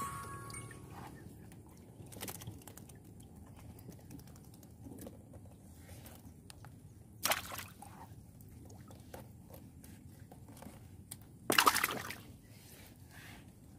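Light water sloshing and handling noises as lobsters are taken out of a trap, broken by a few short sharp sounds. The loudest comes about three-quarters of the way through, and another a little past halfway.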